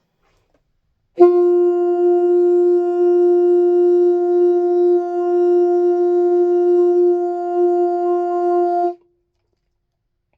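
A wind instrument holds one long, steady note for about eight seconds, starting about a second in and stopping cleanly.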